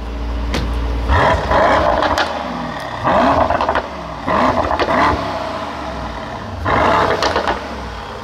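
Mercedes-AMG GT 63 S 4-Door Coupé's 4.0-litre twin-turbo V8 idling at a standstill and blipped four times through its exhaust, each rev rising and falling back to idle within about a second.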